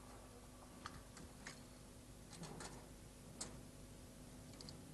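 Faint, irregular light clicks from a hand-cranked, belt-driven automaton dragon's mechanism as it is turned, over a faint steady hum.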